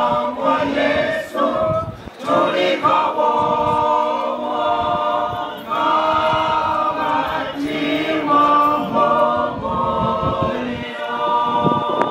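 A women's choir singing together, holding long notes that change every second or so.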